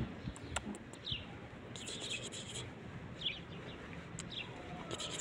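Small birds chirping: short, falling chirps about every second, with a quick twittering run about two seconds in, and a few soft clicks.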